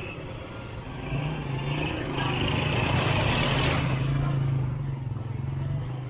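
A motor vehicle running close by, a steady engine hum that sets in about a second in and swells to its loudest about halfway as it passes, then fades.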